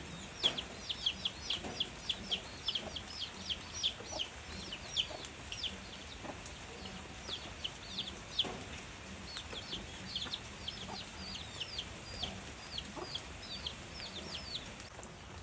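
Chicks peeping in a rapid run of short, high, falling cheeps that thin out and stop near the end, over the steady hiss of gentle rain.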